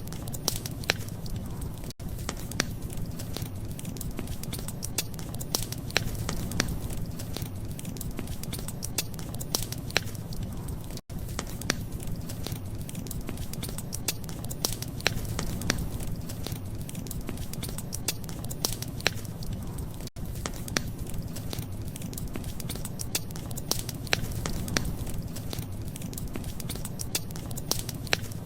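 Wood fire crackling: irregular sharp pops and snaps over a steady low rumble. The sound cuts out for an instant three times.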